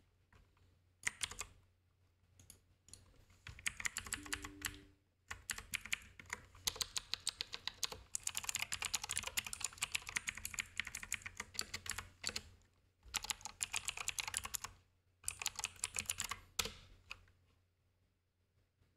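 Typing on a computer keyboard: bursts of quick keystrokes with short pauses between them, stopping near the end.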